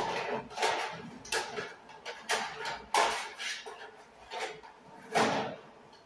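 White plastic network devices knocking and clattering against each other and the metal cabinet as they are handled, in a run of short irregular knocks about every half second.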